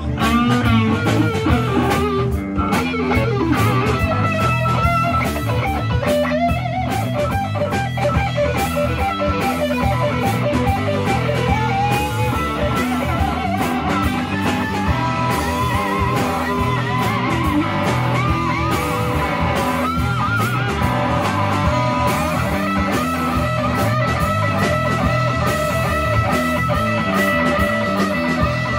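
Live electric blues band playing: two electric guitars over a drum kit, a lead guitar line with notes bent up and down over a steady beat.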